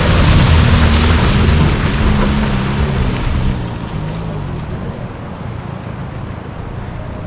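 A vehicle's engine running in low gear, its pitch rising and falling, under a loud rushing noise. About three and a half seconds in, the rushing drops away abruptly and the sound turns quieter.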